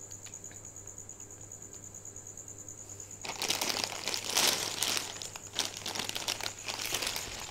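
Plastic film wrapping of an instant-noodle multipack crinkling as it is picked up and turned over in the hand, starting about three seconds in. Before that there is only a faint, steady, high pulsing tone.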